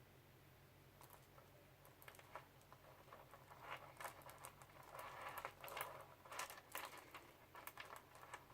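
Faint, irregular clicking and light rustling of beads against each other and against the fingers as they are threaded onto elastic bead cord, busiest past the middle, over a low steady hum.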